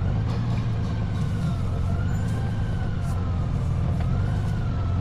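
Honda Gold Wing trike riding at road speed: a steady low rumble of engine and wind. A faint thin tone rises and falls slowly over it, like a distant siren's wail.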